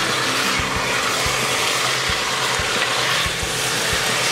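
Chunks of beef sizzling as they brown in hot oil in an enamel pot, stirred with a wooden spoon.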